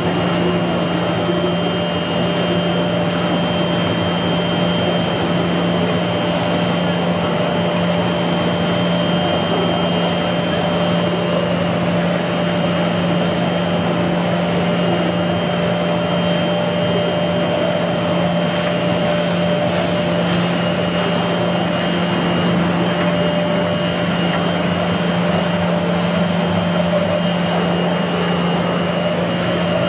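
Plastic film squeezing dryer (dewatering machine) running steadily while pressing water out of wet PP/PE film: a steady machine hum with a constant high whine. A short run of light high ticks comes about two-thirds of the way through.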